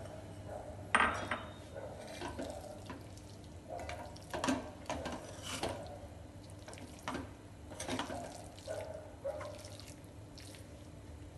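A steel spoon stirring thick, moist khichdi in a pan: soft squelching scrapes and light clinks of the spoon against the pan at irregular intervals, the loudest about a second in.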